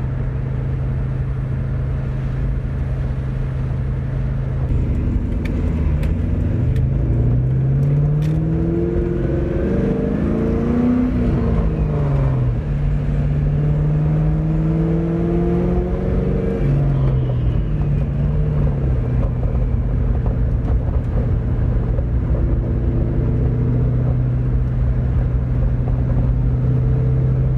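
2001 Ford Mustang's engine and newly fitted exhaust, heard from inside the car while driving. A steady drone at cruise turns, between about 5 and 19 seconds in, into revs climbing and dropping through gear changes, then settles back into a steady cruise.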